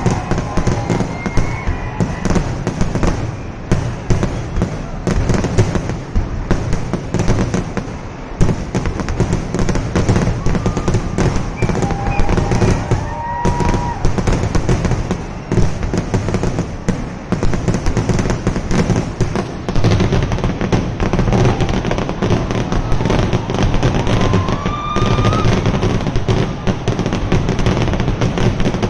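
Kerala temple fireworks (vedikettu) going off in a dense, unbroken barrage: rapid firecracker bangs and crackle running together, with no let-up.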